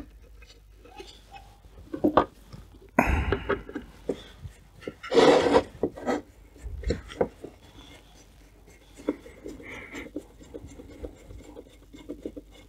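Speaker satellite being put back together by hand: scattered clicks and knocks of small parts against the cabinet, with two longer scraping rubs about three and five seconds in.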